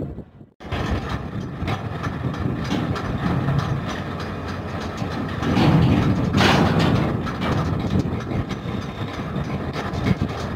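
Steel cargo-hold hatch covers on a small cargo ship moving as the hold is closed: a continuous metallic rumble with scattered clanks. It starts about half a second in and swells briefly around the middle.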